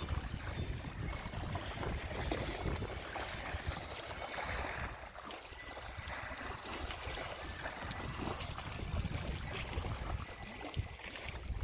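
Wind gusting across the microphone with an uneven rumble, over the wash of river water lapping at the bank.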